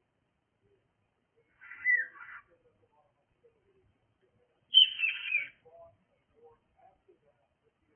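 Cockatiel giving two harsh, screechy calls about three seconds apart, each under a second long; the second is louder.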